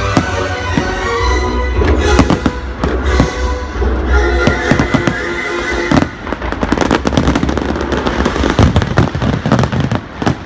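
Fireworks going off in rapid bangs and crackles over loud music with a heavy bass. About six seconds in the music drops away, leaving dense volleys of bangs and crackling.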